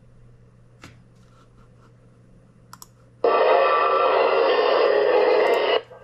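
Xiegu G90 shortwave receiver in AM mode being tuned across the 49-metre broadcast band. For about three seconds there is only faint hiss with a couple of clicks. Then a strong broadcast station comes in suddenly and plays loudly, cutting off abruptly near the end as the dial moves on.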